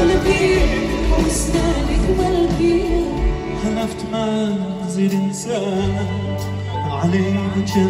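Live band and orchestra playing Middle Eastern pop music, with strings and ouds over bass and drums. The deep low beat drops out about halfway through, and a steady low bass note comes in near the end.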